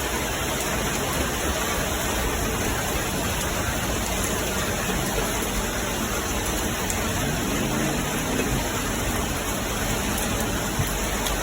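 Heavy rain pouring down steadily, an even wash of noise with no thunder crack.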